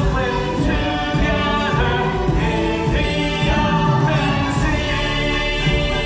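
Stage-show music: a loud backing track with a group of voices singing held notes together, the chords changing about once a second.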